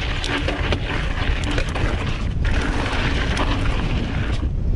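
Wind rumbling on the camera microphone as a hardtail mountain bike is ridden fast down a dirt trail, with tyre noise and quick rattling clicks from the bike over the rough ground.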